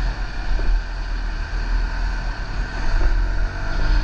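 Motorcycle engine running at low speed in traffic, under a strong, uneven low rumble of wind on the rider's microphone.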